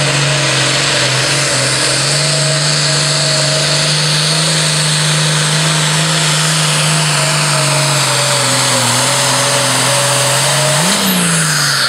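The diesel engine of a modified International Harvester 1086 pulling tractor running flat out under heavy load as it drags the sled, a loud, steady engine note. About eleven seconds in, the note briefly jumps and then falls away as the pull ends.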